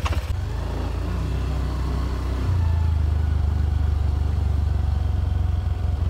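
Motorcycle engine running steadily, getting louder about two and a half seconds in.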